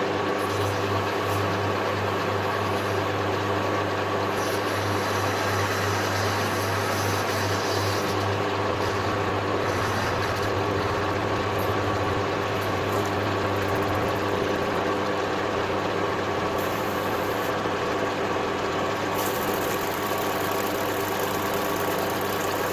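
Metal lathe running steadily, a constant motor and gear hum, while its cutter turns down the outer surface of a white polyamide roller.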